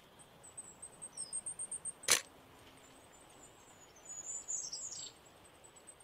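Goldcrest calling in very high, thin notes: a quick run of about eight notes in the first two seconds, then a falling flourish about four seconds in. A single sharp click about two seconds in is the loudest sound.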